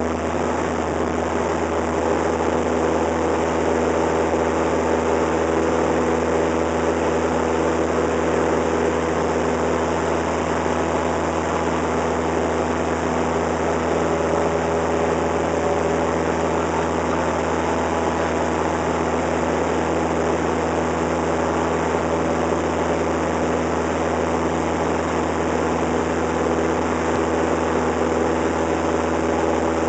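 Cessna 172's piston engine and propeller running at a steady drone at takeoff power, heard from inside the cabin as the plane leaves the runway and climbs out. The pitch and level hold even throughout.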